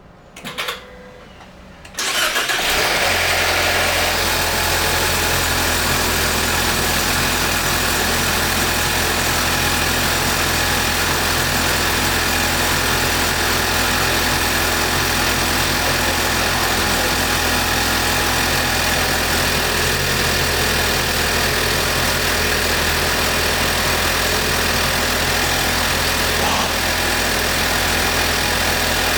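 Lincoln MKZ's 2.0-litre turbocharged four-cylinder engine starting about two seconds in on its newly fitted battery, then settling into a steady idle.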